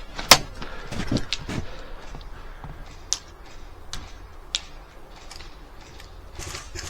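Airsoft gunfire: a loud sharp shot just after the start and a few more within the next second and a half, then scattered single shots further off.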